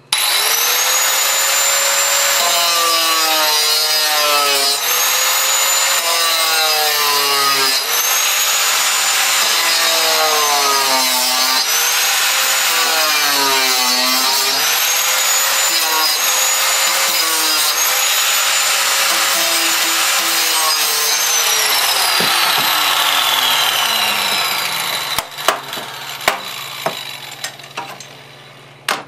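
Angle grinder spinning up and cutting the steel implosion band of a CRT television, its whine dipping in pitch each time the disc bites and recovering between cuts. About 21 seconds in it is switched off and winds down in a long falling whine, followed by a few knocks.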